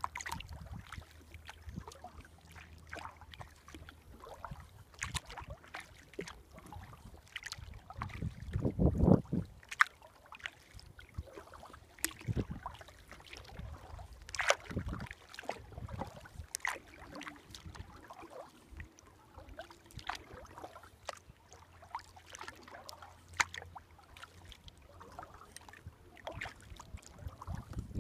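Kayak being paddled: the paddle dipping and dripping in the water with scattered small splashes and clicks at an uneven pace, and a louder low rush about nine seconds in.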